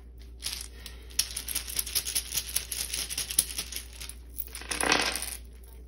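Small wooden letter and number tiles being shaken and rattled together, a dense run of quick clicks, with a louder rustling swish about five seconds in.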